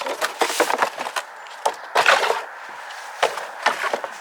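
Bike handlebars being unpacked: irregular crackling, rustling and knocking of packaging being handled and pulled apart, loudest about two seconds in.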